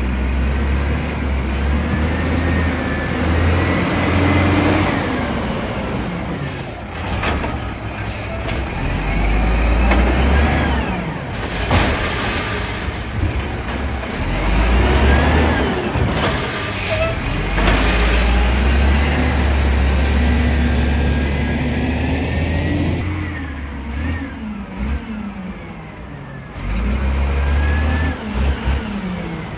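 Volvo WX64 garbage truck with an Amrep Octo automated side-loader body working. The engine revs up and settles back several times, with a whine that rises and falls each time.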